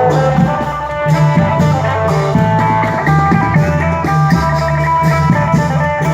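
Band music in a lively Thai fon dance rhythm: a plucked string lead melody over a drum kit and bass.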